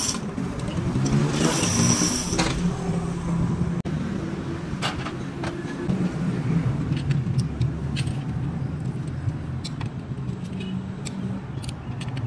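A motor vehicle engine running steadily, with scattered light clicks and taps over it.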